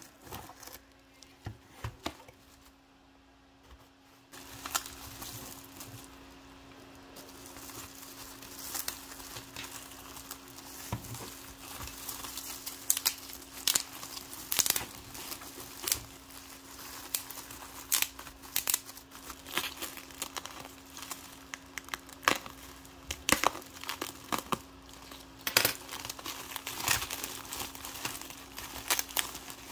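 Bubble wrap crinkling and rustling as hands unwrap it, with many sharp crackles. It is quieter for the first few seconds, then busier and louder.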